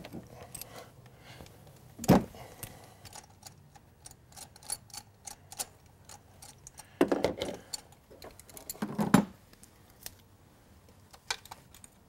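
Metal hand tools clinking and knocking in an engine bay during spark plug removal. There is a sharp knock about two seconds in, a run of small clicks after it, and bursts of clatter around seven and nine seconds.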